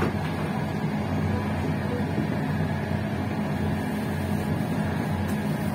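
Passenger train running along the line, heard from its rear: a steady rumble with a constant low hum.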